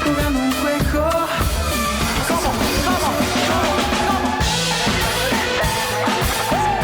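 A live band playing an instrumental passage of a soul-pop song: a drum kit keeping the beat with kick and snare under bass and melodic instruments, with a cymbal wash about four and a half seconds in.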